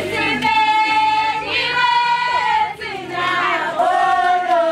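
A group of women and girls singing together, with two long held high notes.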